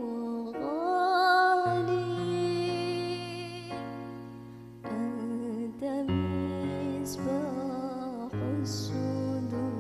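Sholawat being sung in a soft, melismatic style: a voice with vibrato draws out long held notes over instrumental backing with sustained bass notes.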